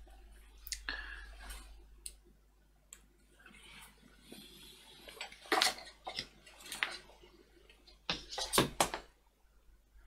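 Scattered clicks and knocks of a soldering iron and a circuit board being handled and set down on a workbench, with a louder clatter about halfway through and the loudest knocks near the end, over a low steady hum.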